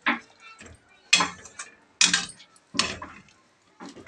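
Metal kitchen utensils clattering: a handful of sharp clinks and knocks of pots and dishes, roughly a second apart.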